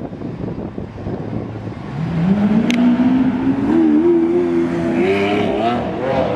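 Lamborghini Aventador Roadster's V12 through its sports exhaust, accelerating hard. Its note rises from about two seconds in and steps higher twice more, over street noise.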